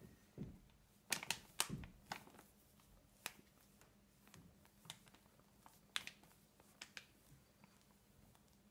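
Paper bag of flour crinkling in the hand as it is tipped to pour into a plastic mixing bowl: a handful of short, sharp crackles, all faint.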